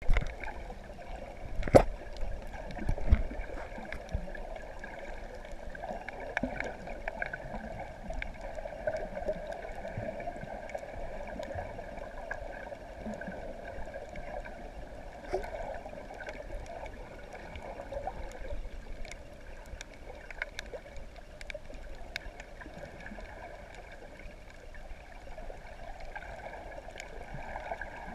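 Muffled underwater ambience picked up by a submerged camera: a steady watery rush with scattered faint clicks. Two loud thumps come in the first few seconds.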